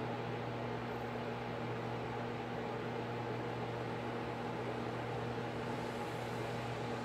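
A steady mechanical hum with an even hiss, a few low tones held constant throughout.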